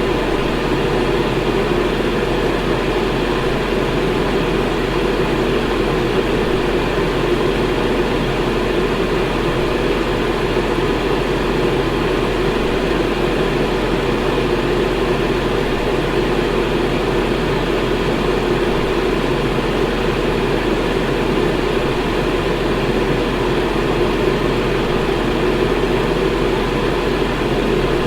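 An electric fan running steadily: an even whooshing rush of air with a low hum underneath.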